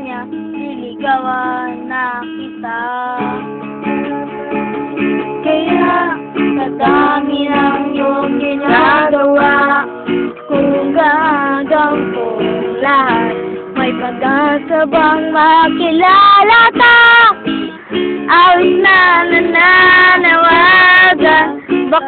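Acoustic guitar strummed with a voice singing along, an unplugged cover of a rock song; the singing grows louder about halfway through.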